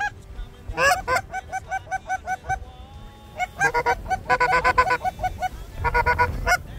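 Geese honking in quick rhythmic runs of short honks, about four a second. From about halfway through, several voices overlap.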